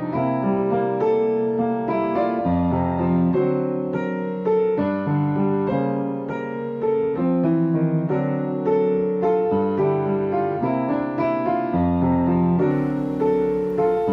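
Background piano music, a melody of single notes over chords.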